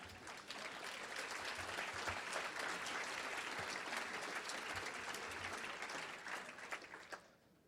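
Audience applauding: a crowd's clapping swells up over the first second, holds steady, and dies away near the end.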